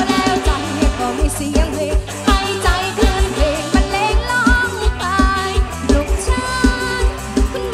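A female singer performs a mor lam sing (Isan Thai folk-pop) song with a live band. Her sung melody wavers with vibrato over a steady kick-drum beat.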